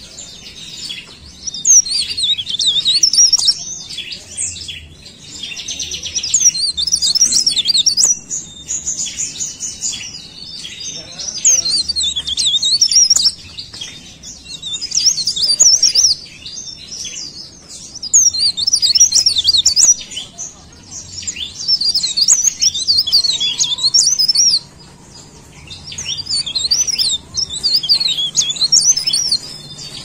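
Mountain leaf warbler (cikrak daun) singing in full voice. Rapid, high, jittery twittering phrases of two to three seconds follow one another with short pauses of a second or two.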